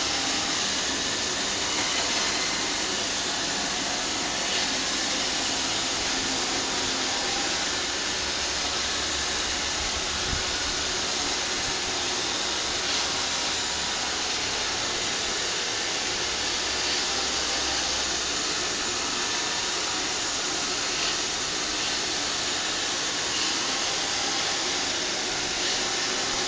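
iRobot Roomba robot vacuum running steadily, its motor and brushes making an even whirring hiss with a few faint ticks.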